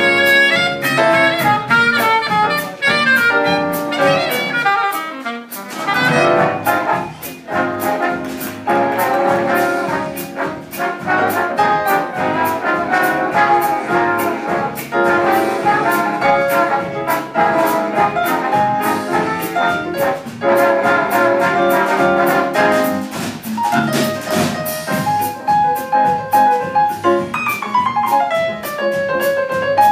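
Live jazz big band playing: saxophones, trumpets and trombones together over a drum kit, with a falling run of notes near the end.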